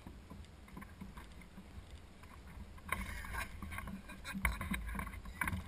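Small knocks, clicks and rustles of gear being handled in a plastic sit-in kayak: sparse and faint at first, a busier run of sharp knocks from about three seconds in.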